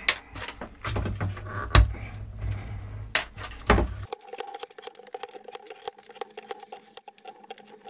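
Plastic keycaps of an Amiga 500 Mitsumi keyboard being pried off their switch stems by hand, giving separate clicks and knocks. After about four seconds this gives way to a fast, dense run of small clicks over a faint steady tone.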